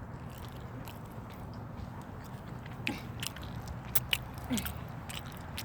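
Close-up chewing and crunching of food, with a few sharp crisp clicks and crackles in the second half.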